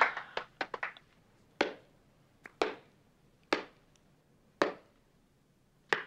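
Hand claps in a room: a quick run of sharp claps in the first second, then five slow single claps about a second apart.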